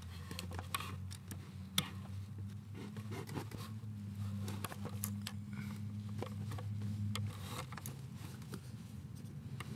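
Fingers handling small metal parts at a car's clutch pedal and master-cylinder pushrod: light clicks and scraping, with two sharper clicks in the first two seconds. A low steady hum runs underneath and fades out about seven seconds in.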